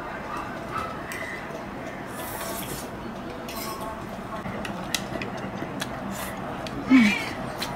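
Tableware at a meal: chopsticks, forks and a knife clinking and scraping on ceramic plates and a metal tray, in scattered small clicks. About seven seconds in there is one short, louder sound with a falling pitch.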